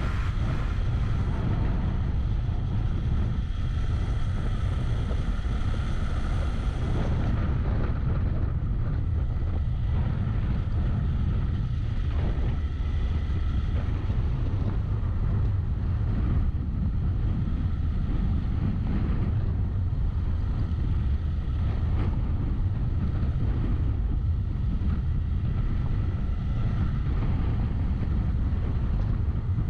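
Steady low rumble of wind buffeting the camera microphone while riding a Yamaha XTZ 250 motorcycle, with the bike's single-cylinder engine running underneath.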